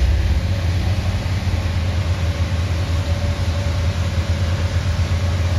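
Engine of a van-mounted steam-cleaning pressure-washer rig running steadily with a low pulsing hum, over the hiss of the water jet on the paving.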